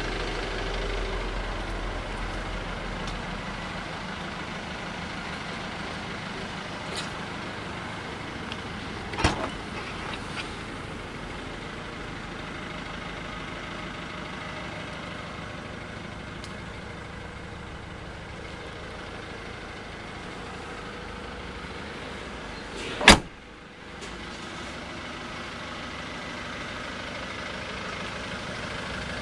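Jaguar X-Type saloon idling with a steady hum. About 23 seconds in, one loud thump of the boot lid being shut; a lighter click comes about nine seconds in.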